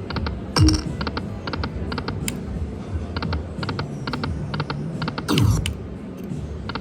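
Lightning Link slot machine sound effects: quick clusters of electronic ticks repeating about twice a second, with a deeper thump twice.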